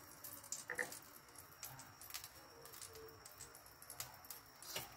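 Faint, irregular crackling and ticking from a wok heating over a low gas flame, with one louder tick near the end.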